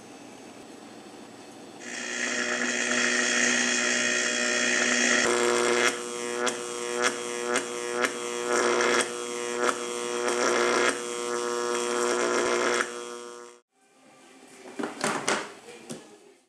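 Homemade flux capacitor prop playing its electric hum-and-buzz sound effect. A low hum swells into a loud buzz about two seconds in, then pulses in short surges roughly twice a second before stopping suddenly. A few knocks and taps follow as the box is handled.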